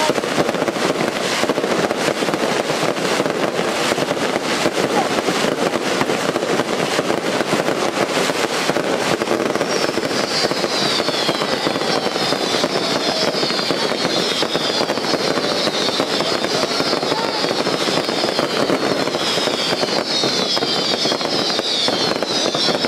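Daytime fireworks barrage: a dense, continuous rattle of rapid crackles and bangs. About ten seconds in, a chorus of high whistles with falling pitch joins in, repeating over and over on top of the crackling.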